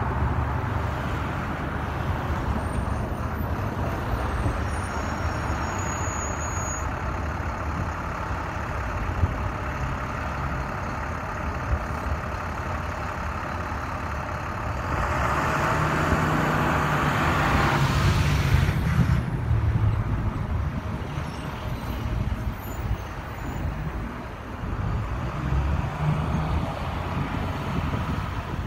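Double-stack intermodal freight train rolling past, a steady rumble of steel wheels on the rails, growing louder for a few seconds around the middle.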